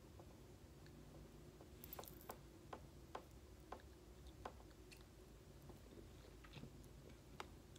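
Near silence broken by a series of faint small clicks and taps, about ten of them, from small plastic cosmetic items being handled.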